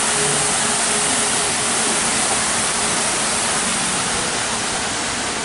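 Steady rush and splash of fountain water falling, an even hiss with no breaks.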